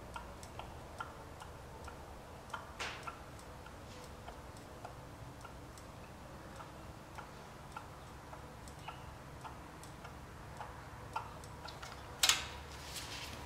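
Faint, regular ticking, about two and a half ticks a second, then a sharp, loud noise near the end as the recoil starter cord of a Tecumseh small engine is pulled for a cold start.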